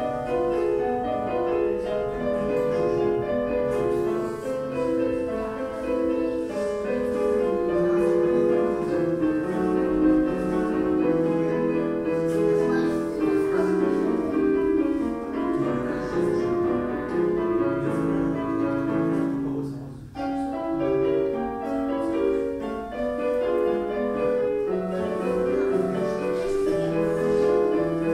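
Piano music with a melody over chords, briefly dropping away about twenty seconds in.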